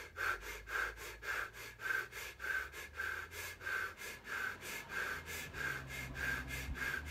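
A man deliberately hyperventilating, breathing in and out quickly through an open mouth in a quick, even rhythm of a little under three breaths a second.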